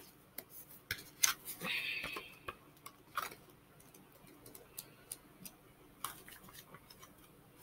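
Faint handling noises: scattered light clicks and taps, with a brief rustle about two seconds in.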